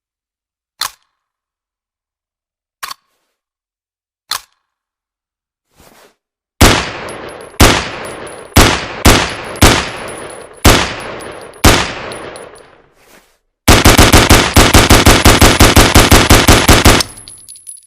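Ruger 10/22 rimfire rifle sound effect: three sharp clicks, then about seven single shots at uneven intervals, each with a ringing tail, followed by a rapid burst of about ten shots a second for roughly three seconds.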